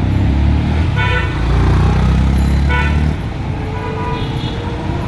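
Road traffic with vehicle horns honking: two short horn blasts, about a second in and again near three seconds, over the heavy low rumble of an engine passing close, which drops away after about three seconds. Another, lower horn tone sounds briefly around four seconds.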